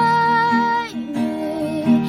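A woman singing to acoustic guitar strumming: she holds one long note, then moves to a lower, wavering note about a second in, over steady strummed chords.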